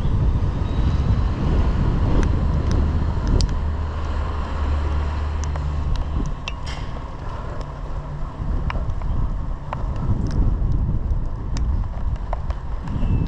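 Wind buffeting the microphone over a low vehicle rumble, with a steadier low hum from about a third of the way in to the middle, and scattered faint clicks.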